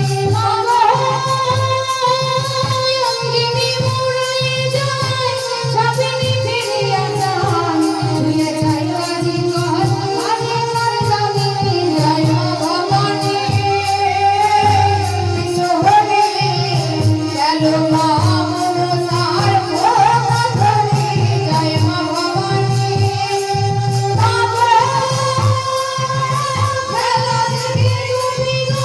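A Bengali devotional folk song sung through a microphone and PA, with the melody gliding and ornamented, over a steady beat on barrel-shaped hand drums.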